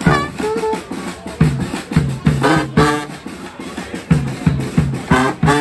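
A street band plays live: a steady drum beat of about two to three hits a second under short phrases from brass horns.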